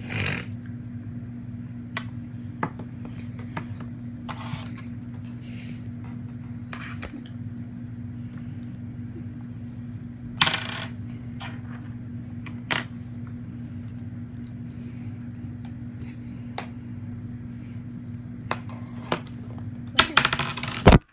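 Scattered sharp clicks and clinks of a plastic fidget spinner and its small metal bearings being handled and pried at, over a steady low hum. Near the end comes a burst of loud clattering knocks as the recording phone falls.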